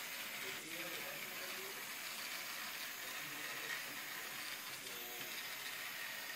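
Lego robot's small drive motors and plastic gear trains running steadily as the robot turns and shifts in place.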